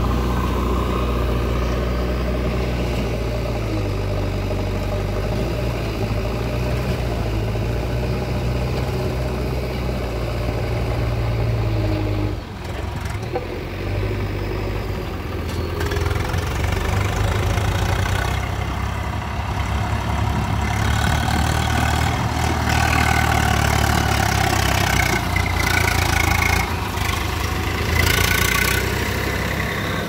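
Tractor diesel engine running steadily while pulling a soil-loaded tipper trailer, its note shifting briefly about twelve seconds in.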